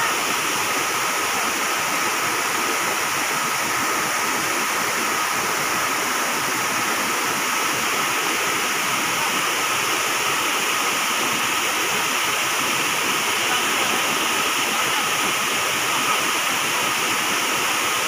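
Piduan Falls and the white-water rapids below it, rushing steadily without a break.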